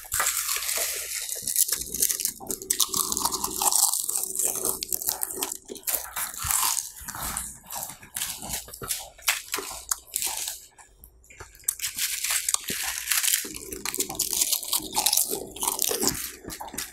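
Bingo Hot Chili potato chips being bitten and chewed, with a dense run of irregular crisp crunches.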